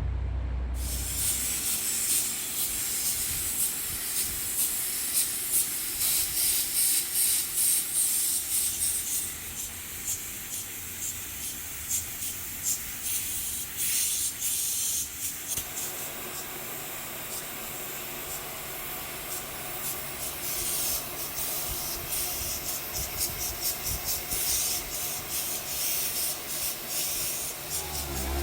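Compressed-air paint spray gun hissing in repeated on-off passes as primer is sprayed onto a bumper repair.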